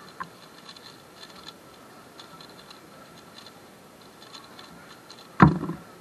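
Faint, quick clicking of a Valk 3 speedcube's layers being turned during a timed solve, then, about five and a half seconds in, a loud thump as the cube is put down and the hands slap the competition timer to stop it.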